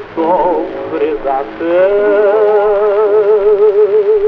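A male singer singing a Russian romance with wide vibrato. A short phrase is followed, about a second and a half in, by one long held note.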